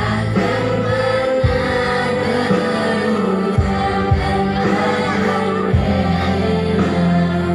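Music with a group of voices singing over sustained low bass notes.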